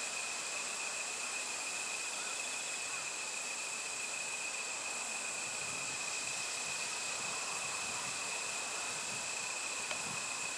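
Insects singing in a steady, continuous high-pitched drone, two unbroken high tones over a soft hiss.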